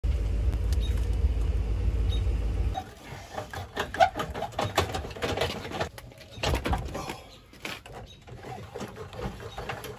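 A steady low rumble for about the first three seconds. Then irregular metal clicks, clanks and short squeaks as the hand-cranked tongue jack and hitch coupler of a pop-up camper trailer are worked.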